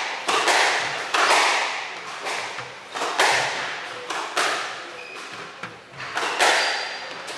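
Squash rally: the ball struck by racquets and smacking off the court walls, sharp hits about once a second, each with a ringing echo.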